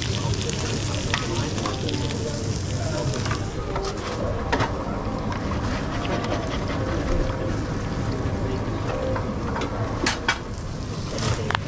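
Food sizzling on a hot flat-top griddle and eggs frying in oil in a pan, with the hiss thinning out about three and a half seconds in. A few sharp clicks come through the frying.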